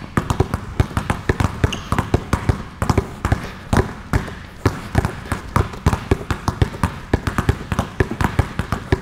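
Several basketballs dribbled hard and low at once on a hardwood court floor: a fast, uneven patter of overlapping bounces, several a second.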